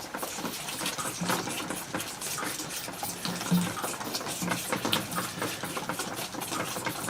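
Goat kids sucking at bottle nipples: a rapid, irregular clicking and smacking that keeps on steadily.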